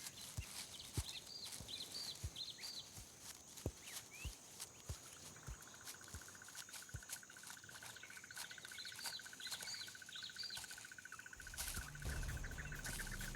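Faint bush ambience: small birds chirping in short bursts, and an insect trilling steadily from about halfway through, with soft scattered taps. Low music comes in near the end.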